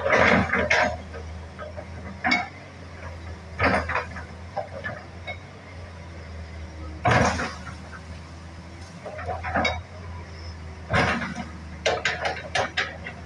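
Hitachi excavator working: irregular metallic clanks and knocks over a steady low engine hum, with the loudest clanks near the start, about seven seconds in, and in a cluster near the end.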